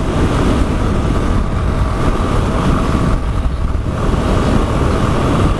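Yamaha XTZ Lander motorcycle under way. Its single-cylinder engine runs steadily beneath wind rushing over the microphone.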